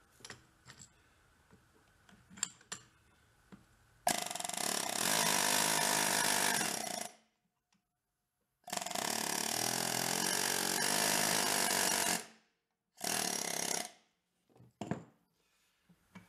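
Pneumatic air hammer rattling in three bursts, about 3 s, 3.5 s and 1 s long, as it hammers on a stuck part to drive it off a transmission shaft. A few light clicks of handling come before and after.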